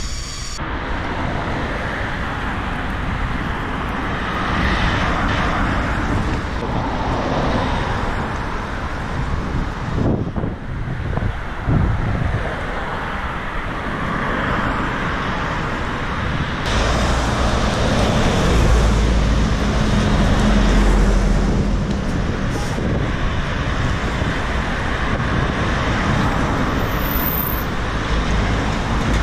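Road traffic: cars and light trucks passing on a wide multi-lane road, a steady hum of engines and tyres with a heavier low rumble for a few seconds past the middle.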